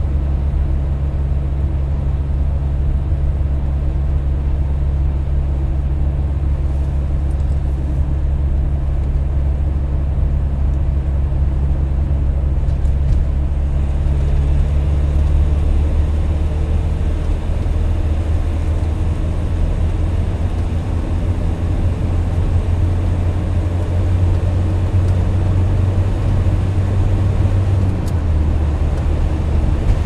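Car driving at motorway speed, heard from inside: a steady low drone of engine and tyre-on-asphalt noise. The low hum shifts slightly in pitch about halfway through.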